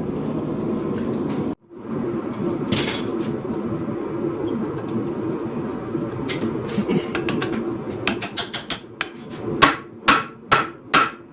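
Hand hammer striking hot 52100 bearing steel on an anvil over a steady rushing noise. A couple of single blows come first, then from about eight seconds in a run of heavy, ringing strikes at about two a second. The hardened bearing steel barely moves under the blows.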